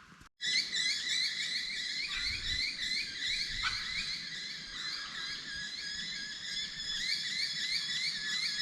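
A chorus of many high, repeated chirping calls overlapping steadily, with one short falling call about three and a half seconds in.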